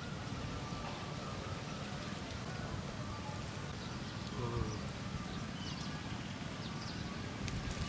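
Outdoor ambience: a steady low rumble with a faint insect-like buzz and a few faint short chirps. Footsteps on dry sandy ground start just before the end.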